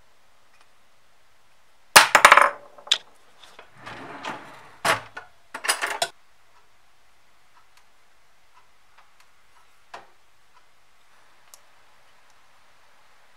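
A cutlery drawer opened and metal cutlery clattering and clinking as a fork is picked out, in a burst of loud rattles lasting about four seconds. Later come a couple of faint light clicks.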